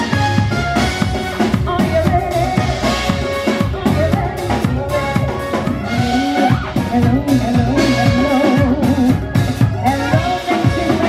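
Live band playing upbeat music, with a drum kit, trumpet and keyboard and a singer's voice.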